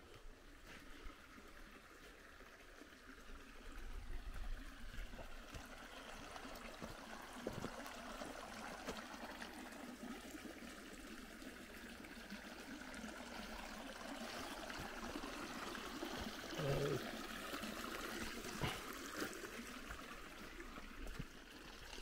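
A small stream of water flowing steadily. A faint voice is heard briefly about two-thirds of the way in.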